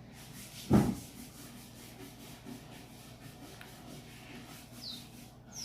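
Homemade slime being squeezed and worked by hand, a soft steady rubbing and squishing, with one loud thump under a second in. A bird chirps once near the end.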